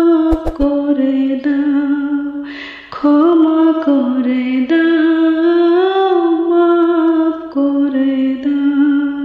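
A woman's voice sings a slow nasheed melody without words, in long held notes that bend gently in pitch, with a short break about three seconds in.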